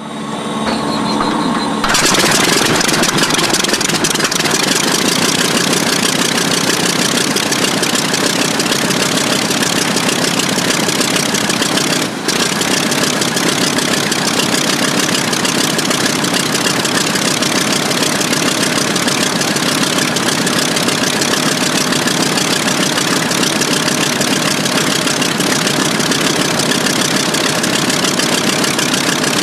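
Original WWII Sakae 31 fourteen-cylinder radial engine of an A6M5 Zero fighter, running steadily on the ground with its propeller turning. It comes up to full, steady loudness about two seconds in, with one brief dip near the middle.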